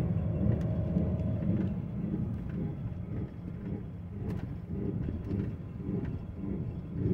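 2006 Ford F-150 4x4 driving, with a low front-end running noise that pulses about twice a second along with the road noise. It is heard from the driver's side, and the mechanic suspects a failing front hub wheel bearing or a 4x4 hub actuator that is not engaging properly.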